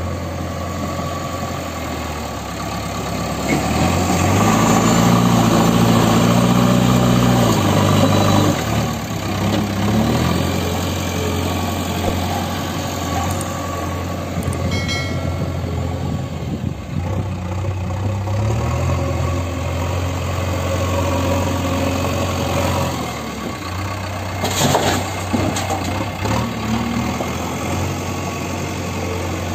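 JCB 3DX backhoe loader's diesel engine running, revving higher and louder for several seconds from about four seconds in while the loader works, then settling back to a steady run. A few sharp knocks sound near the end.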